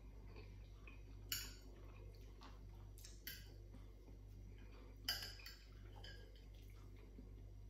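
Metal fork clinking and scraping against a plate while noodles are twirled, three sharp clinks among fainter taps.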